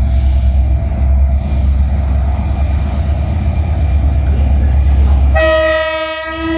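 A freight train approaching slowly with a steady, loud low rumble. About five seconds in, its locomotive sounds one horn blast, held to the end.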